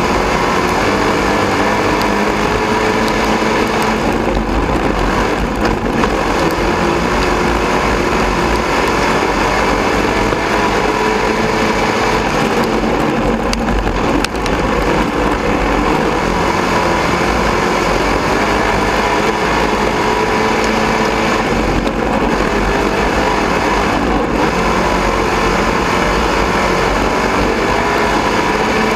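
Dirt-track sport modified's V8 engine running at racing speed, heard from inside the cockpit. The engine note rises and falls with the throttle, with brief lifts every few seconds.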